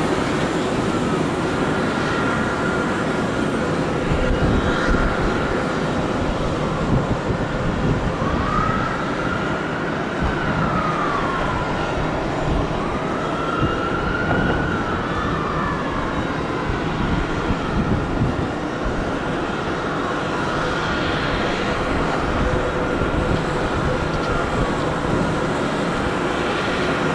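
Emergency vehicle sirens wailing, slowly rising and falling in pitch, from first responders arriving. A steady rush of background noise runs underneath.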